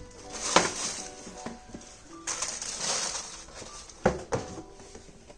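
Sneakers and their cardboard shoebox being handled: a few sharp knocks and a stretch of rustling, over soft background music.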